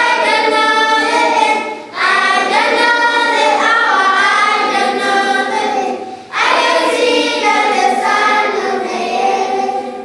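A group of children singing together as a choir, in long sustained phrases. The singing breaks off briefly for breath about two seconds in and again about six seconds in.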